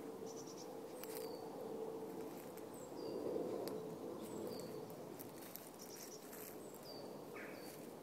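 A small bird giving short, high calls that fall in pitch, repeated every second or two, with a few brief chirps in between, over a steady low background rush.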